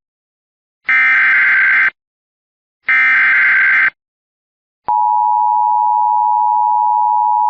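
Two EAS SAME header data bursts, harsh digital screeches about a second each and a second apart, the last two of a set of three. About five seconds in, the steady two-tone EAS attention signal starts and holds on, announcing the next alert.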